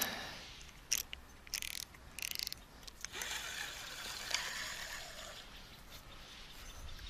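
Fishing reel being worked after a cast: a sharp click, then two short bursts of rapid ratcheting ticks, followed by a soft hiss.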